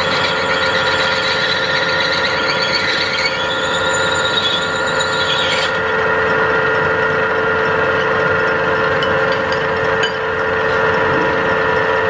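A machine's cutting tool working into the crown of a cast bronze bell, giving a steady metallic ringing with several held tones. A higher squeal runs over it and stops suddenly about six seconds in.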